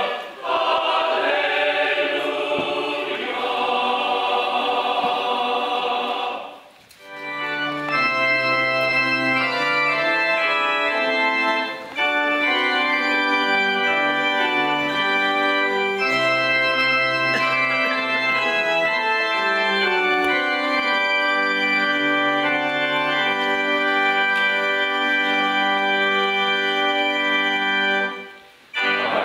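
A choir sings for about the first six seconds, then an organ plays sustained chords that change every second or two, stopping briefly near the end.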